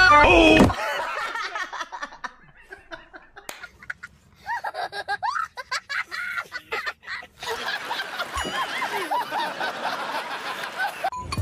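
Human laughter. A high voice comes first, about four seconds in, then a man laughs in a long run of short laughs from about seven and a half seconds in until just before the end.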